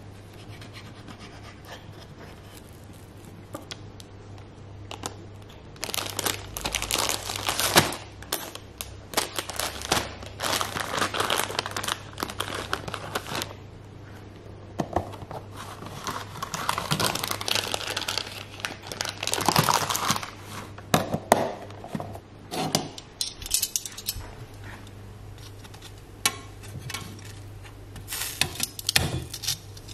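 Plastic bread bag crinkling and rustling in long stretches as sandwich thins are handled and taken out. A low steady hum sits underneath, and a few short clicks near the end come from metal tongs on a frying pan.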